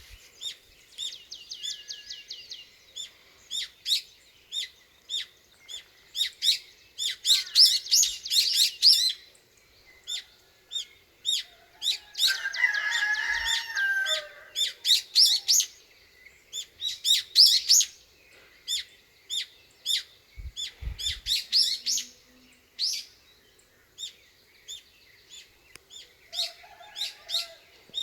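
Small songbirds chirping and singing, a steady stream of short, high, quickly repeated chirps with a trill near the start and denser bursts of song scattered through. A couple of brief low thumps come about three-quarters of the way through.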